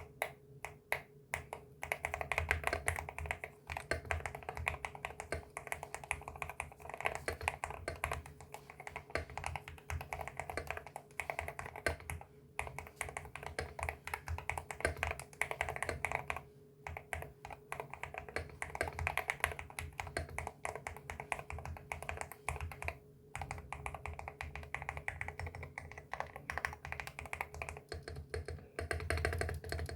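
Fast typing on a keyboard with factory-lubed Gateron Jade Ultra magnetic switches in a metal-plate MCHOSE Ace 68 Turbo: a dense run of soft keystroke clacks, broken by a few short pauses.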